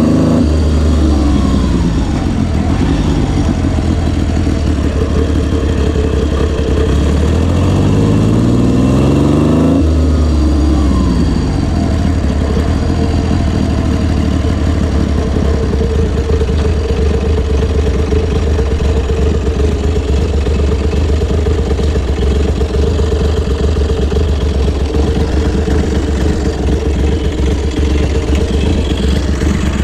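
1971 BSA Rocket III's 740 cc three-cylinder engine being ridden. Its note falls as the throttle is closed, then climbs for several seconds under acceleration, drops off sharply about ten seconds in, and runs at steady low revs after that.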